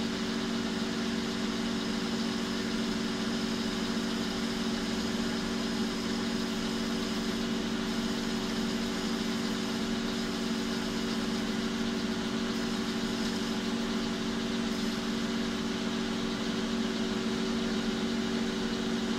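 Metal lathe running at a steady speed, its motor and gear train giving a constant hum, while a tool is fed into the end of the spinning bar to cut a shallow recess.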